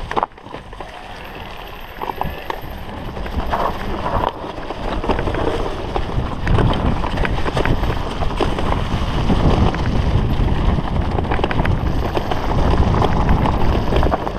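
Mountain bike riding fast down a leaf-strewn dirt forest trail: wind rushing over the microphone, with the tyres crunching over leaves and dirt and the bike rattling over bumps. It grows louder about four seconds in as speed builds.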